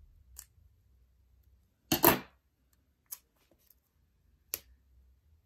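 Small craft scissors clicking a few times, the loudest a double click about two seconds in.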